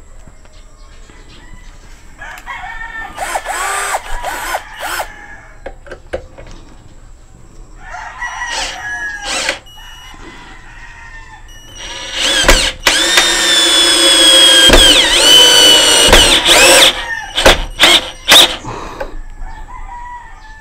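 Mitsushi 12-volt cordless drill, set to its low-speed, high-torque gear, driving a 2-inch gypsum screw into wood. It runs in a few short bursts, then a loud run of about seven seconds whose motor whine dips briefly in pitch midway and picks up again, with a few sharp clicks near the end.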